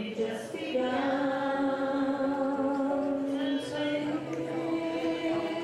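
A group of people singing a song together, holding long notes.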